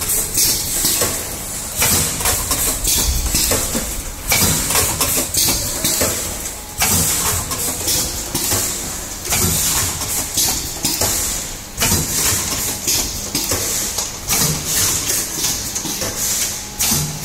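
Vertical form-fill-seal liquid packing machine running, with steady mechanical clatter and hiss and a heavier stroke repeating about every two and a half seconds as it cycles.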